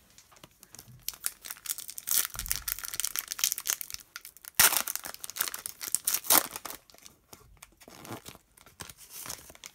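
Foil wrapper of a Panini Excalibur trading-card pack being torn open by hand: dense crinkling and ripping, loudest in two sharp rips about four and a half and six seconds in, then softer crinkling as the cards are slid out.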